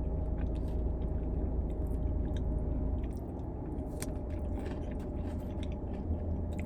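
A person chewing food close to the microphone, with scattered small wet clicks and crunches from the mouth, over a steady low rumble.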